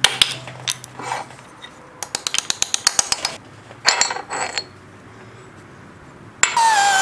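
Metal-on-metal clicks, taps and rattles as a cast-iron Wilton Cadet bullet vise is taken apart, with a quick run of about ten clicks a second around the middle. Background music comes in loudly near the end.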